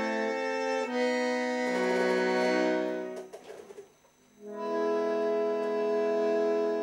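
Bandoneon playing slow, held chords: the chord changes about a second in, dies away with a few faint clicks into a brief pause about four seconds in, then a new chord swells and is held.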